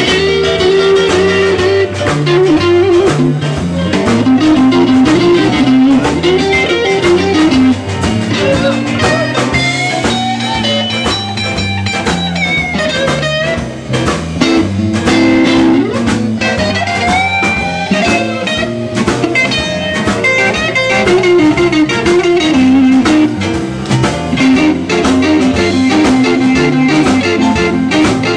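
Live blues band playing: electric guitar over bass guitar and drum kit, with bending melody lines above a moving bass line.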